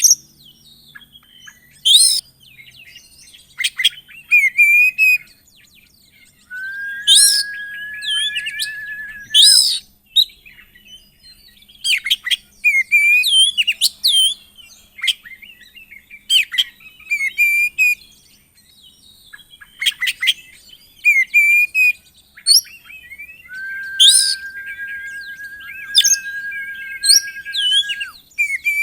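Oriental magpie-robin (kacer) singing a varied song of sharp high chirps and quick sweeping notes, broken twice by a long, level whistle lasting about three seconds.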